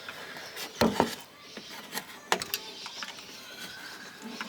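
A few sharp clicks and knocks of small parts being popped out by hand: a loud double knock about a second in, then a quick cluster of lighter clicks.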